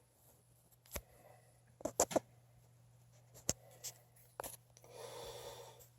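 Scattered sharp clicks and knocks of hand work on a gas furnace being dismantled, three of them close together about two seconds in. A soft scraping sound follows near the end.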